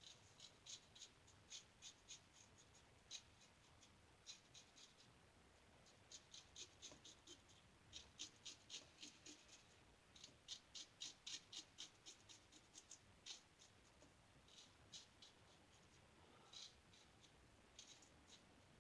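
Faint scratch of a 1901 Gem lather-catcher single-edge safety razor with a Gem stainless blade cutting through lathered stubble, in short quick strokes that come in runs of several with brief pauses between.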